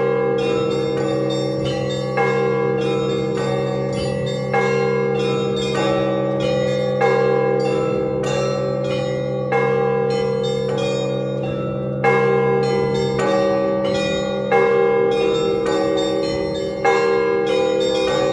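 Russian Orthodox church bells rung together in a full peal: a heavy bell strikes about every two and a half seconds over a rapid, continuous pattern of smaller, higher bells, with the larger bells' tones ringing on underneath.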